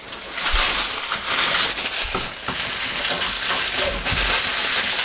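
Protective wrapping rustling continuously as hands peel it off the plastic wheels of a toy shopping cart, with a few small knocks of the wheel.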